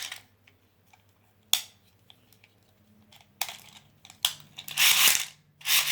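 Packaging of a toy launcher being handled: scratchy rubbing of cardboard and plastic, a few sharp clicks in a quieter stretch, then two more short bouts of rubbing near the end.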